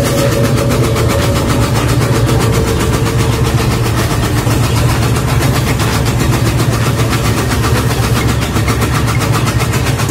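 Homemade tobacco-shredding machine running steadily on its half-horsepower electric motor: a loud, even hum with a fast, regular rattle from the spinning mechanism.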